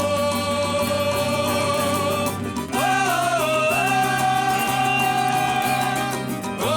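Samba school singer holding long, drawn-out notes without words over the band's accompaniment and a steady low bass note; about three seconds in the voice slides up to a higher held note.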